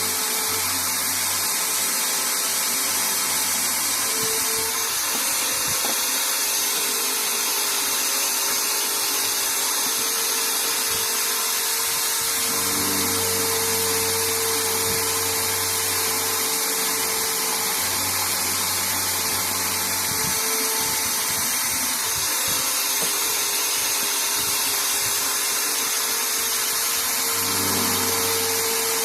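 Small bench drill motor running steadily. A low hum rises in and out several times while the high hiss holds constant.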